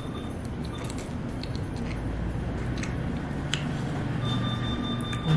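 Slurping in and chewing ramen tteokbokki (rabokki) noodles over a steady low hum. A steady high beep starts about four seconds in.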